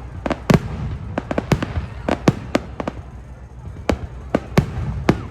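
Aerial fireworks going off in a quick, irregular series of sharp bangs, a dozen or so over a few seconds, over a continuous low rumble.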